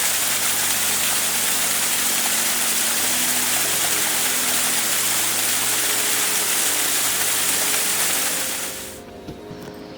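Waterfall rushing loudly, with soft background music of held notes underneath; the water sound fades out quickly near the end, leaving the music.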